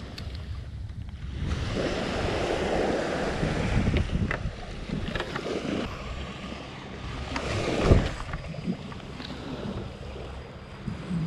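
Small waves washing on a sandy shore with wind buffeting the microphone. About eight seconds in, a sharp whoosh as a surf rod is swung through a long cast.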